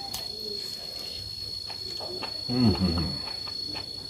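A steady high cricket trill under soft clicks and smacks of a man eating rice and pork with his hand and chewing. Just past halfway a short low hum, about half a second long, the loudest sound.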